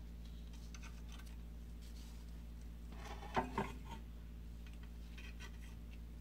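Quiet handling of a mini lathe's electric drive motor as it is taken off and turned in gloved hands: faint rubbing and light knocks of metal parts, with two short clicks about three and a half seconds in, over a steady low hum.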